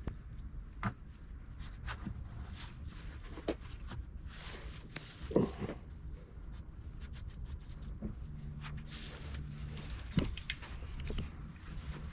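Scattered light clicks and knocks of tools and bike parts being handled, with louder clunks about five and ten seconds in, over a steady low hum.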